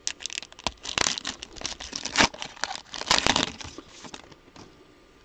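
Foil trading-card pack wrapper being torn open and handled: crinkling and rustling with sharp clicks, which die away about four seconds in.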